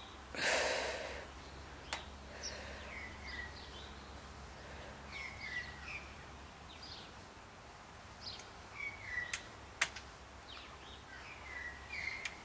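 Small birds chirping on and off, short hooked calls repeated through, over a steady low hum. A brief rush of noise about half a second in is the loudest thing, and a few sharp clicks come around two seconds in and near ten seconds.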